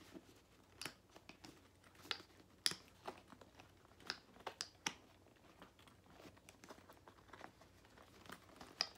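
Faint, irregular clicks and rustles of a Louis Vuitton Pochette Métis handbag being handled: its metal strap hardware and brass S-lock clasp clicking as the flap is pressed down to fasten. The clasp is hard to close while the bag is empty.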